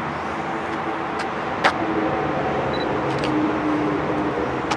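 Steady rush of wind and road noise while riding along an asphalt street, with one sharp click about a second and a half in.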